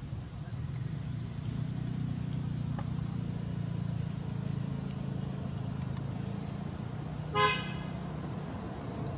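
A steady low engine rumble from a vehicle, with one short horn toot about seven and a half seconds in.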